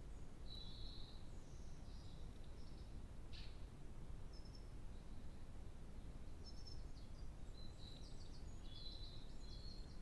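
Faint, high-pitched songbird chirps and short song phrases come at intervals and grow thicker in the last few seconds, over a steady low background rumble.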